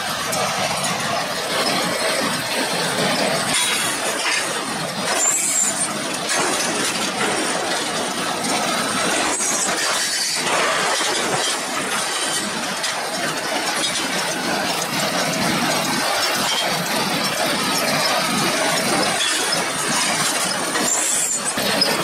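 Small square baler and Bale Baron bale accumulator working in hay: a steady mechanical clatter and rattle, with a couple of brief high squeals.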